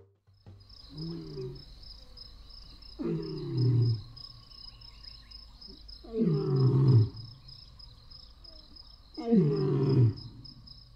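A lion roaring: four long calls about three seconds apart, each falling in pitch, over steady high-pitched insect chirring.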